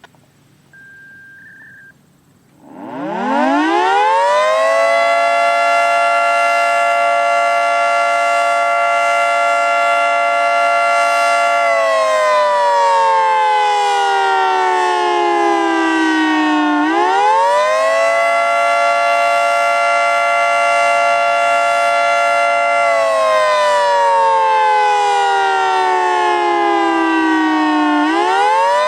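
A short electronic beep, then a Federal Signal 2T22 dual-tone outdoor warning siren winds up about three seconds in to a loud, steady chord. It holds the chord, then slides down in pitch and winds back up, twice: the rising-and-falling wail of the attack signal.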